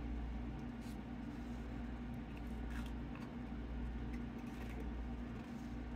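A Pringles chip taken from the can and eaten: faint rustling and a few soft crunches, over a steady low hum.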